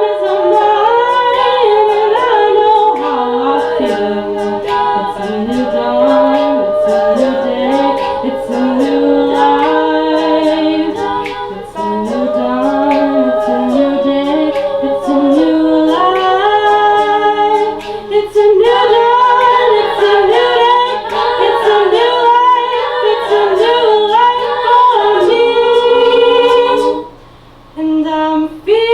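A cappella vocal group singing in close harmony, with sharp clicks keeping a steady beat. It breaks off for a moment near the end, then comes back in.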